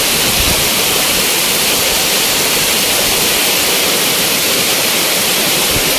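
Heavy rain pouring down in strong wind: a loud, steady rushing hiss of a tropical downpour.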